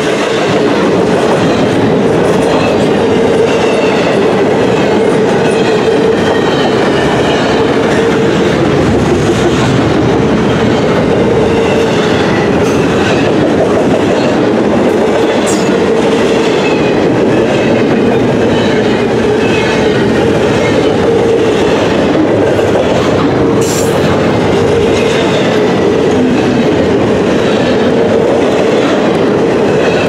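Loaded double-stack container well cars of a freight train rolling past close by: a steady, loud rumble and clatter of steel wheels on the rails, with faint high wheel squeals now and then and one sharp knock about three-quarters of the way through.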